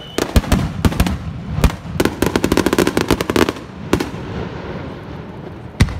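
Aerial fireworks bursting: a run of sharp bangs, then a dense rapid crackle lasting over a second about two seconds in, then two single bangs, the last near the end.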